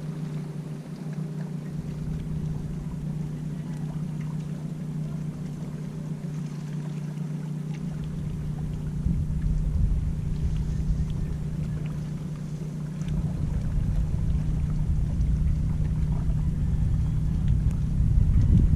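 Steady low hum of a running engine, with wind buffeting the microphone from about 2 seconds in, heavier from about 8 seconds.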